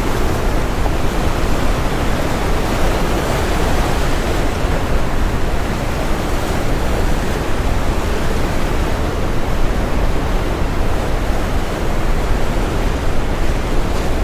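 Steady brown noise, a deep even hiss, blended with ocean waves washing on a shore that swell slightly now and then.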